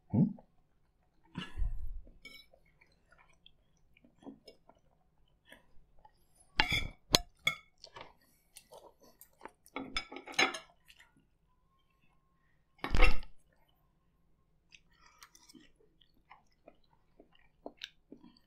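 Chewing, with metal forks clinking and scraping on ceramic plates. A few louder knocks stand out, the loudest about thirteen seconds in.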